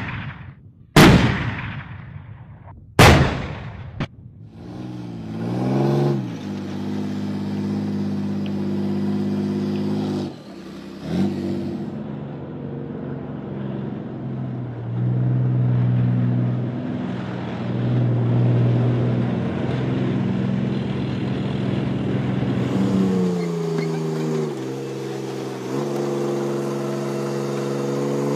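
Leopard 2 main battle tank's V12 diesel engine running as the tank drives, its pitch rising and falling as it revs, with a clear rise in revs near the end. Two loud sharp bangs about one and three seconds in.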